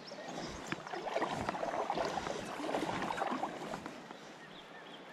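Water sloshing and splashing around a wader's legs in a shallow river, with small irregular splashes. Louder through the first three seconds or so, then dying down.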